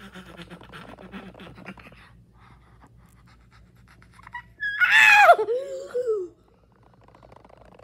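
A child's voice giving a loud, high cry that slides down in pitch, lasting about a second and a half, about five seconds in. Before it, soft rustling of plush toys being handled.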